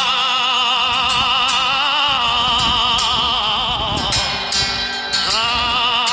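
A singing voice holding long notes with wide, wavering vibrato. The phrase fades about four and a half seconds in, and a new held note starts about a second later.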